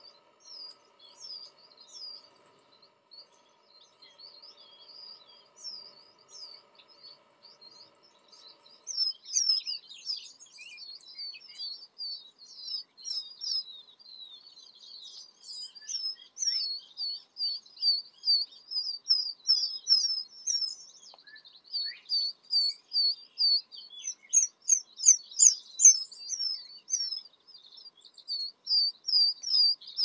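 Pheasant chicks peeping: many short, high, downward-sliding peeps. They are sparse at first and become rapid and louder from about a third of the way in. A faint steady hum sits under the first third.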